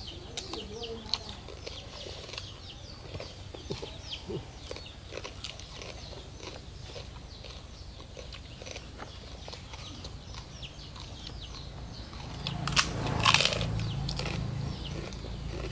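Close-up eating sounds: chewing, lip smacks and small wet clicks as raw fish wrapped in leaves and herbs is eaten. A louder stretch of crunching comes about 13 seconds in.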